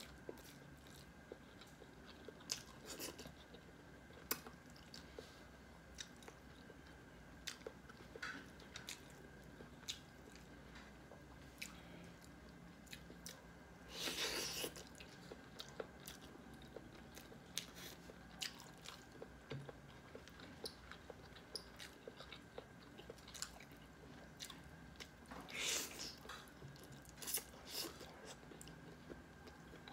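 Close-up mouth sounds of a person eating chicken curry and rice by hand: quiet chewing with soft smacks and clicks, and two louder bites, one about halfway through and one a little later.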